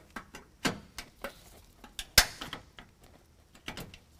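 Gloved hands and a plastic pry tool working a plastic plug out of a steel truck frame: scattered light clicks and knocks, the sharpest about two seconds in and another at the very end.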